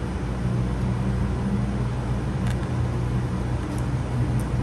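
Steady low background hum with no change in level, and a few faint light clicks in the second half.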